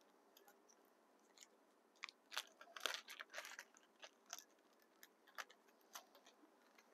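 Small clear plastic resealable bag crinkling as it is handled, a string of faint, sharp crackles from about two seconds in to about six seconds in.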